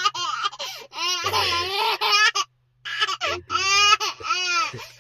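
A one-year-old baby laughing in high-pitched bursts at a pretend sneeze, with a brief pause about halfway through.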